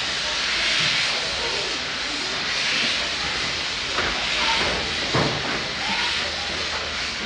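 A narrow-gauge steam locomotive at a station, hissing steam steadily in swells that rise and ease. Two short knocks come about four and five seconds in.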